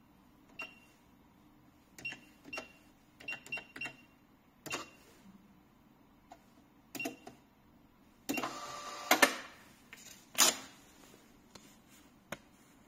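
Cash register keys pressed one at a time, each a sharp click and several with a short high beep. About eight seconds in, the register's receipt printer runs for about a second, and a couple of seconds later comes the loudest event, a single sharp tear as the printed receipt is ripped off.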